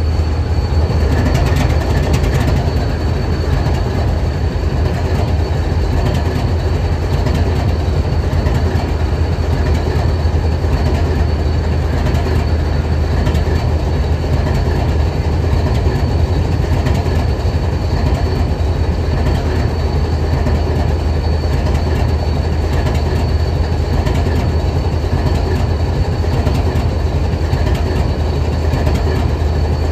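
BNSF 7876 diesel-electric locomotive idling: a steady low engine drone with a thin, steady high whine over it.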